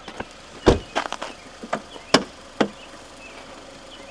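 A car's hood being opened: a string of sharp knocks and clunks, about six in the first three seconds. The loudest is a deep thud a little under a second in, and a sharp crack follows just after two seconds.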